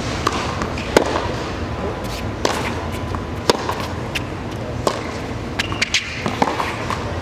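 Tennis ball struck back and forth by rackets in a baseline rally: sharp pops of ball on strings about every second to second and a half, with softer ball bounces between them. A murmur of crowd chatter runs underneath.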